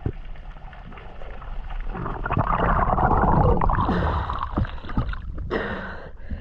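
Muffled rushing and gurgling water, as heard by a camera underwater, swelling about two seconds in and easing near the end, with a few light knocks.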